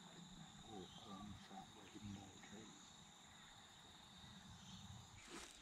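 Near-quiet bush ambience with a faint, steady high-pitched insect drone.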